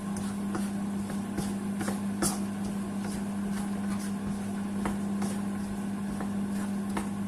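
A steady mechanical hum, with scattered faint crackles from vegetables frying in oil in a wok.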